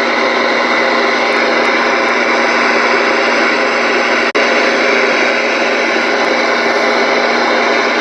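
Loud, steady buzzing interference received on a Ranger RCI-2950 ten-meter radio and heard through its speaker, with a brief dropout about four seconds in. The operator suspects some piece of machinery on the building's roof is causing it.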